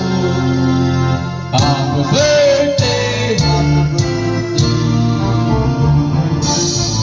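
Background music: a song with a singing voice over sustained chords.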